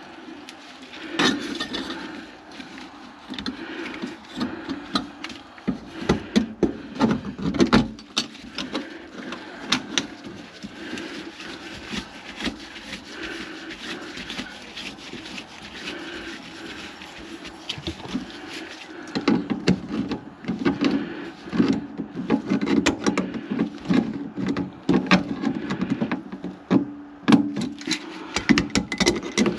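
A drain snake fitted with a spade head is turning in a grease-clogged kitchen sink drain. Its cable rattles and knocks irregularly against the pipe over a low hum that comes and goes, heavier in the second half.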